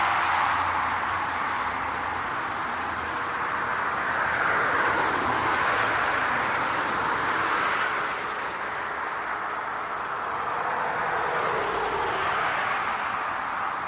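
Jet airliner engines: a steady rushing noise that swells and eases slowly, with a faint steady tone underneath.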